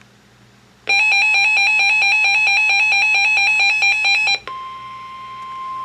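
Emergency Alert System alert tones: a loud, harsh buzzing alarm tone starts about a second in and runs for about three and a half seconds, then gives way to a single steady, quieter high tone.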